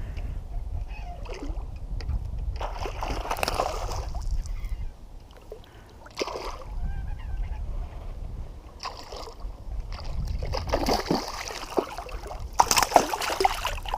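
Water splashing in several separate bursts as a hooked smallmouth bass thrashes at the surface beside a kayak, over a steady low rumble.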